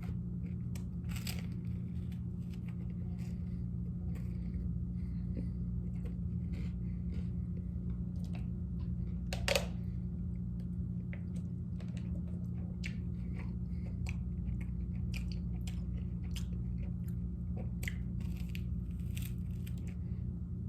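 A person chewing and biting into garlic bread close to the microphone, with scattered small crunches and a louder bite about nine and a half seconds in, over a steady low hum.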